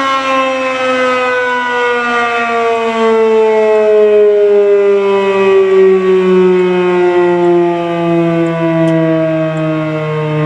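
Federal Signal Model 5B electromechanical fire siren winding down, its chord of tones sliding slowly and steadily lower in pitch.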